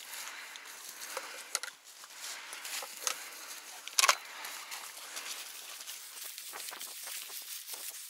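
Footsteps and legs brushing through dense, dry field vegetation: a continuous rustling and crackling of stalks with scattered small snaps, and one sharper, louder crack about four seconds in.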